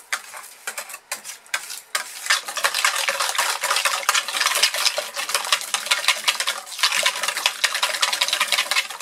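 A wire balloon whisk beating thickening goat milk soap batter in a bowl: rapid wet clicking and scraping of the wires against the bowl. There are a few separate strokes at first, then fast, continuous whisking from about two seconds in.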